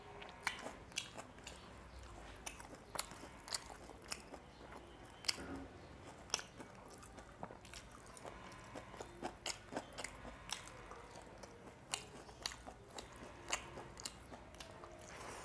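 Close-miked eating of small fish curry with rice, eaten by hand: chewing and biting with crunchy, sharp clicks coming at an irregular pace.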